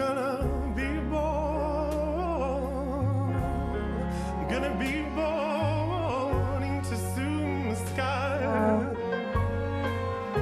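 Slow, sombre ballad: a singer's voice with wide vibrato holds long notes over low sustained chords that change every few seconds.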